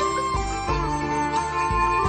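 Background music: a held melody line over a repeating bass pattern with a steady beat.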